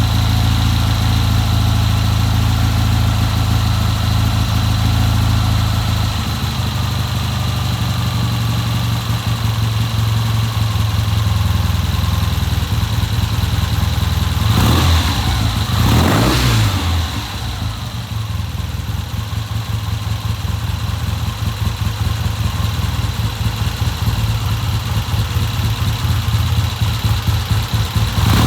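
1970 Triumph motorcycle engine running on a newly fitted Amal Premier carburettor, idling steadily. About halfway through the throttle is blipped once, the revs rising and falling back to idle, and another blip starts right at the end.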